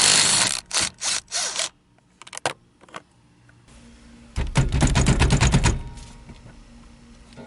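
Impact wrench hammering off the steering-wheel centre nut in two bursts: one at the start lasting under two seconds, and a louder, heavier one about halfway through.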